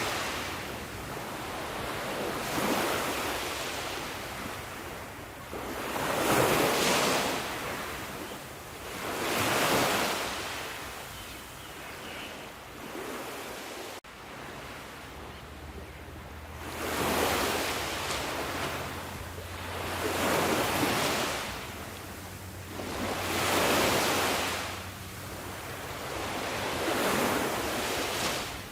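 Sea waves breaking and washing in one after another, each surge of surf swelling and falling away every three to four seconds.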